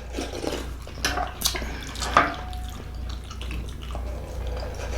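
Someone sipping and slurping noodle broth, with a few short, sharp clicks and clinks from the eating.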